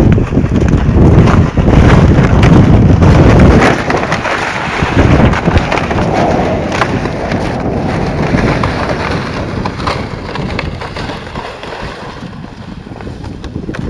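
Wind buffeting the microphone: a loud low rumble for the first few seconds, then lighter wind noise with scattered crackles.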